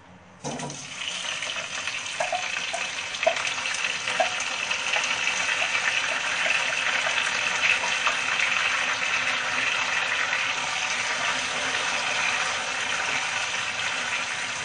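Boiled chicken pieces hitting hot oil in a kadhai, setting off sizzling that starts suddenly about half a second in and carries on steadily, with a few small pops of spitting oil.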